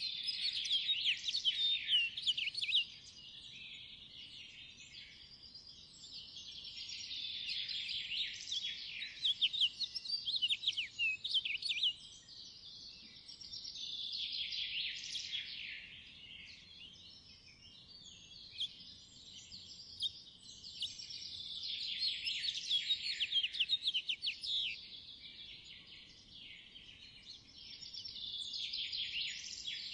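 Small songbirds singing in repeated bouts of rapid, warbling twitter, each lasting a few seconds with quieter pauses between.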